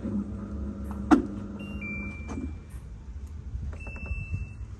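Washing machine running with a steady motor hum that stops about halfway through, a sharp click about a second in, and two short high electronic beeps, the second near the end.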